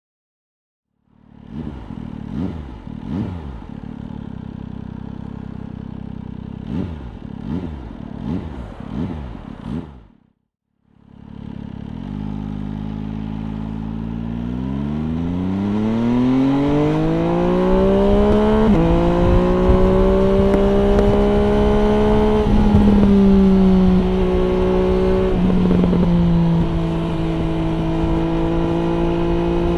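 MV Agusta Brutale 800 RR three-cylinder engine through an aftermarket FF by Fresco exhaust: it idles with a couple of throttle blips, then a quick run of several more. After a second's gap, the bike pulls away and the engine note rises steadily for about six seconds. It drops at a gear change, then holds steady with a couple of brief dips at further shifts, under rising wind noise.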